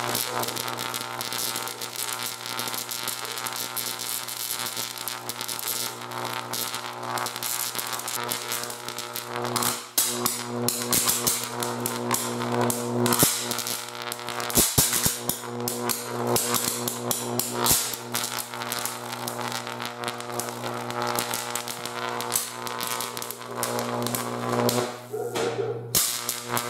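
High-voltage arc from a 125,000-volt x-ray transformer burning into an orange: a loud, steady electrical buzz with constant crackling and sputtering.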